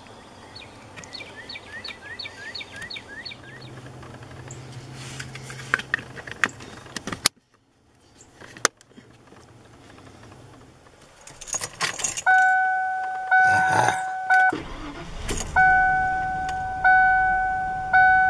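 Plastic clicks from handling a fuse at the under-dash fuse panel, then keys jangle and the 1992 Lincoln Town Car's electronic warning chime starts up. The chime is a two-note ding that repeats about once a second, each ding fading after it strikes, with the driver's door standing open.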